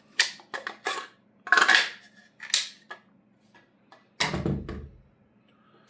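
Hard objects being handled and set down on a table: a string of sharp clacks and clicks over the first three seconds, then one heavier thump about four seconds in.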